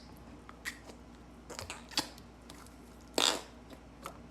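Slime being handled and pressed out into a mixing plate: scattered sticky crackles and clicks, with one louder, short squelching rasp about three seconds in.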